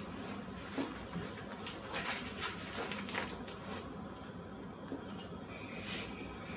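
Handling noises of a blood pressure cuff being wrapped around an arm: several short rustles and scrapes over a faint steady background hiss.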